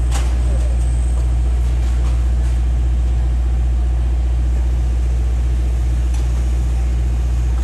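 Heavy construction machinery engine idling steadily, a deep continuous hum, with one sharp knock right at the beginning.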